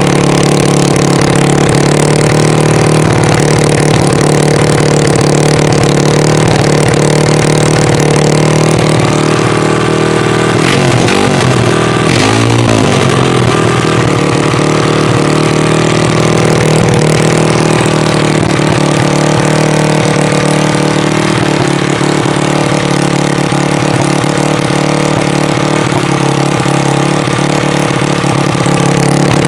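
140 cc pit bike engine block, a single-cylinder four-stroke, running unmounted at a steady idle. Its pitch wavers briefly, up and down, about ten to thirteen seconds in, then settles again.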